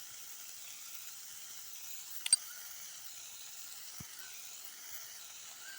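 Chopped tomato, onion, garlic and dried red chillies sizzling steadily as they sauté in a kadai over a low flame. One sharp click about two seconds in, and a faint knock later.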